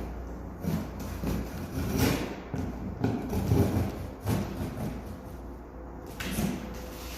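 Irregular knocks, thuds and clatter of hard objects being handled, over a faint steady low hum.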